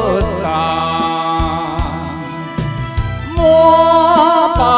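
Karaoke backing track with a man singing a Taiwanese Hokkien ballad into a microphone. His sung line trails off at the start, the instrumental backing carries on alone for about three seconds, and he comes back in with the next line near the end, his voice wavering with vibrato.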